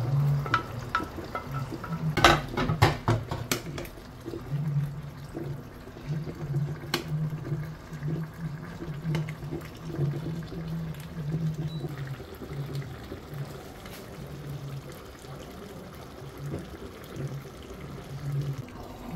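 Garden egg stew in palm oil bubbling and squelching in a steel pot, wet and irregular. A quick run of sharp clinks comes about two seconds in, as the glass bowl and wooden spoon knock against the pot.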